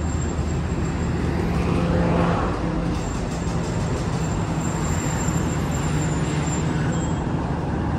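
Diesel locomotive running steadily with a low hum, over a general noisy rumble that swells slightly about two seconds in.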